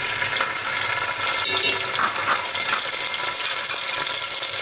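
Ginger garlic paste sizzling steadily in hot oil in a non-stick pot.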